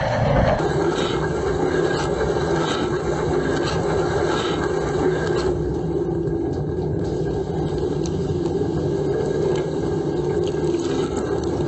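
Dishwasher running a wash cycle, heard from inside the tub: water spraying and sloshing over a steady pump hum. The higher hiss of the spray dulls about halfway through.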